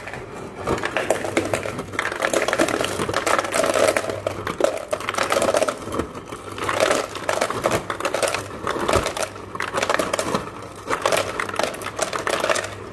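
Cubed ice dropping from a refrigerator door ice dispenser and clattering into a plastic basin: a dense, continuous rattle of cubes hitting plastic and each other, over a low steady hum from the running dispenser.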